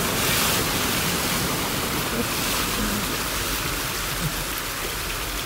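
Car tyres driving through floodwater on a street, a steady rushing splash of spray that swells briefly in the first second and again about two and a half seconds in.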